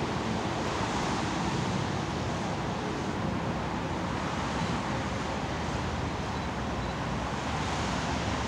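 Steady outdoor wind noise on the microphone, with a low, distant vehicle rumble underneath.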